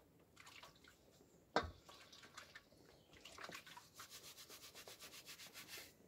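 A wooden-handled bristle brush scrubbing rapidly back and forth, about ten strokes a second in the last couple of seconds. A single sharp knock comes about a second and a half in.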